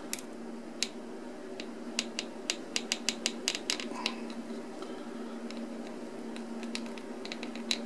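Small hard clicks and taps of fountain-pen parts being gripped and worked by hand, a quick run of about five a second between two and four seconds in, then scattered single clicks. A steady low hum underneath.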